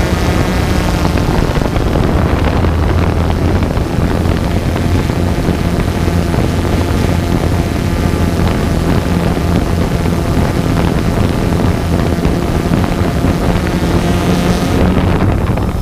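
Multirotor drone's electric motors and propellers running with a steady hum, heard through the onboard camera's microphone, with wind noise on the microphone.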